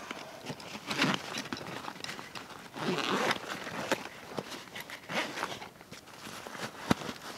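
Irregular rustling and scraping from handling gear or moving about, in separate bursts every second or two, with one sharp click near the end.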